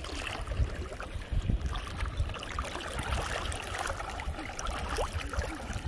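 Estuary water sloshing and trickling as people cross through it, over a low, uneven rumble on the microphone.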